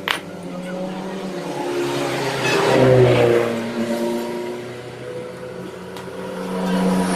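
Honda Supra X 125's single-cylinder four-stroke engine running, revved up about three seconds in, settling back, then rising again near the end. A sharp click comes right at the start.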